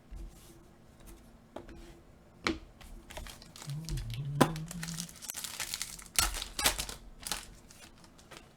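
A foil trading-card pack being torn open and its wrapper crinkled, in a run of rustling bursts and sharp clicks that come thickest in the second half.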